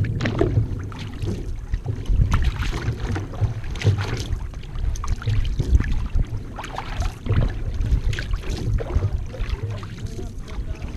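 Paddling a one-person outrigger canoe: the blade catching and pulling through the water, with water washing along the hull and a low rumble from the moving craft.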